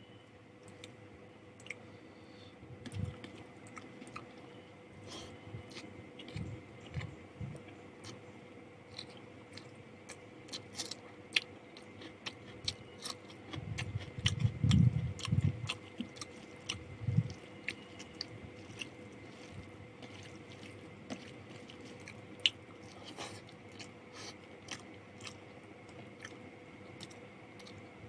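Close-miked chewing and biting of food, with scattered crunchy bites and wet mouth clicks. About halfway through comes a cluster of louder, low thumping chews.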